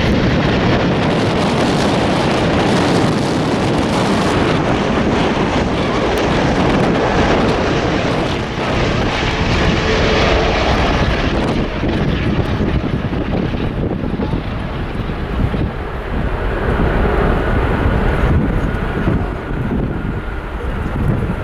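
Jet airliner engines running loud as the aircraft passes, the high part of the sound thinning out about halfway through as it moves away, with wind buffeting the microphone.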